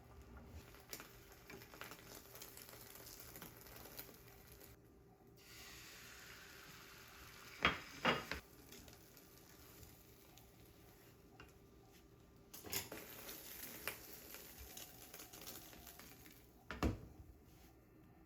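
Home kitchen cooking: food sizzling in a pan while a utensil stirs and clinks against it, with a few sharp knocks of cookware about eight seconds in and again near the end.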